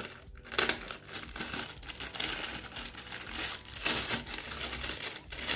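Packaging crinkling and rustling as parts of a microphone stand are handled, in irregular crackles with louder bursts about half a second in and around four seconds.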